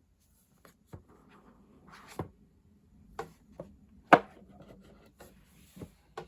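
Handling sounds from unboxing a phone: a series of light knocks and clicks as the box and its contents are handled, with faint rustling in between. The loudest knock comes about four seconds in.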